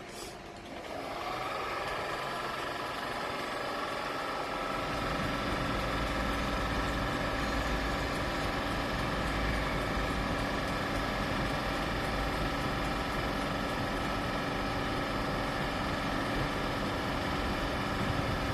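Class 91 electric locomotive standing still, its on-board equipment starting up about half a second in. The sound builds over a few seconds to a steady hum with several steady tones, and a low rumble joins it at about five seconds.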